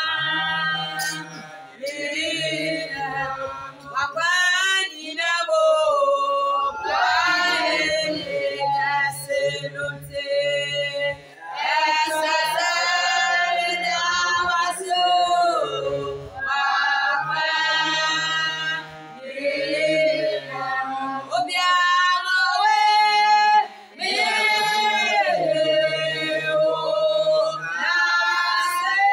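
A small group singing a worship song, led by a woman's voice, in phrases of long held notes with short breaks between them.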